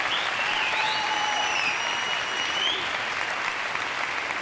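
Large hall audience applauding steadily, with a thin high tone held over the clapping for about two seconds near the middle.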